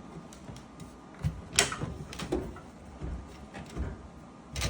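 A handful of scattered knocks and clacks from items being handled in a metal toolbox's power-tool drawer, the sharpest near the end.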